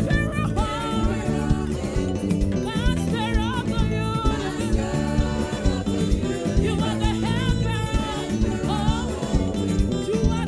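Live gospel praise music from a church choir and band: singing with ornamented runs over a steady beat of drums and bass.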